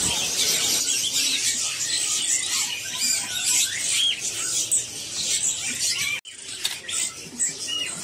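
Many caged songbirds chirping and twittering together, a dense chatter of short high calls, with fluttering wings in the cages.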